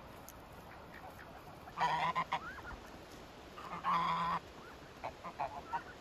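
Domestic greylag-type geese honking: two long, loud honks about two seconds apart, then a handful of short calls near the end.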